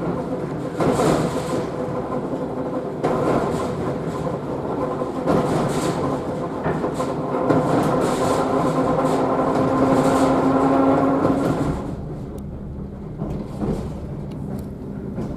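Passenger-saloon noise of an EPL9T electric multiple unit running while it picks up speed. A steady hum of several tones sits over the wheel and rail noise, with occasional knocks. About 12 seconds in, the hum drops away and the running gets quieter.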